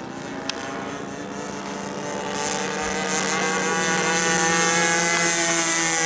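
Single-cylinder 20cc two-stroke gas engine of a large RC Seagull A6M Zero turning its propeller in flight, a steady buzzing note. It grows louder as the plane comes closer, and its pitch sinks slightly.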